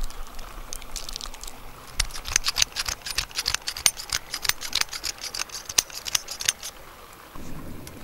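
Salt and pepper being put on a thick block of raw beef: a dense run of small, sharp clicks of seasoning, starting about two seconds in and lasting about five seconds.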